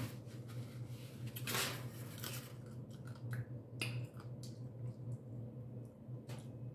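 Close-up eating sounds from a blue crab seafood boil: irregular cracks and snaps of crab shell being broken, with wet chewing and smacking, over a steady low hum. The loudest crackle comes about a second and a half in.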